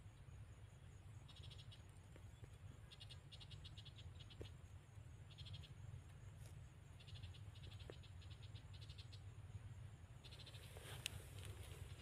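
Faint insect chirping: short trills of rapid high-pitched pulses, each about half a second long, coming every second or two over a low steady hum.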